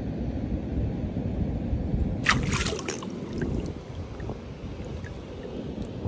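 Water splashing and trickling in a shallow rock pool as a hand moves a lemon under the surface, a short splash about two seconds in followed by a few drips, over a steady low rumble.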